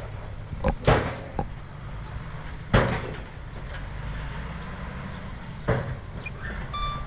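Bulldozer's diesel engine running with a steady low rumble, broken by loud sharp knocks about a second, three seconds and six seconds in.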